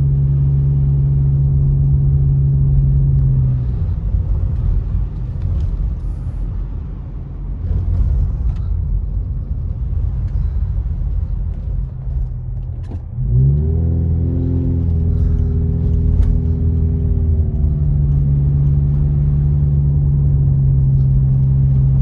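Car driving, heard from inside the cabin: a steady engine hum over low tyre and road rumble. The engine note drops away about four seconds in, leaving the rumble, then comes back with a sharp rise about thirteen seconds in as the car accelerates away and holds steady.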